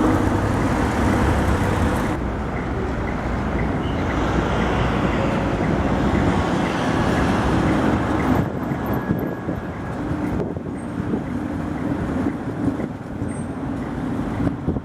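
Street traffic with a Tatra T3-family tram running, a steady low rumble and hum that eases a little about two seconds in and again past the middle.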